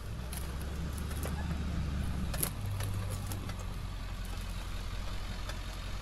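Tow truck's engine running as the truck drives slowly along a rough dirt track, a steady low hum whose note steps up about halfway through.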